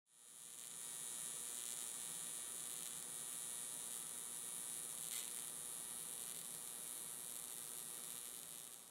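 AC TIG welding arc on aluminium, a steady electric buzz as the torch runs along the seam. There is a single brief click about five seconds in.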